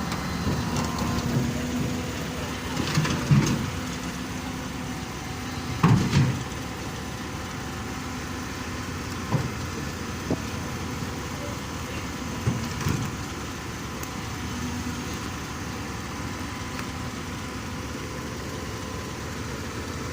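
Heavy diesel engine running steadily, with a handful of sharp knocks and clanks over it, the loudest about six seconds in.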